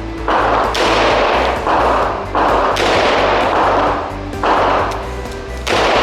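Revolver fired in a string of about seven or eight shots at an uneven pace, each shot ringing on for a moment, with background music underneath.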